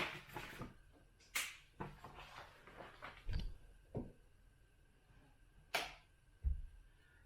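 Scattered clicks and knocks of things being handled, with a few dull low thumps, about two sharp clicks and several soft knocks at uneven intervals; no machine is heard running.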